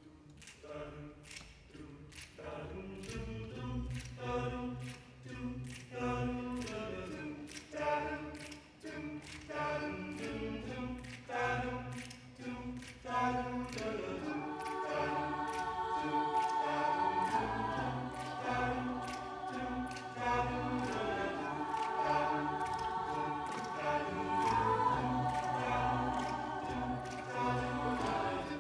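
Mixed-voice a cappella group singing, over a steady beat of sharp clicks. The first half is short repeated chords; about halfway through the voices move to long held chords with a lead line on top.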